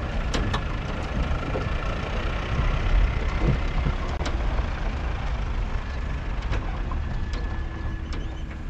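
An engine running under way: a steady low rumble with rushing noise over it and scattered sharp knocks.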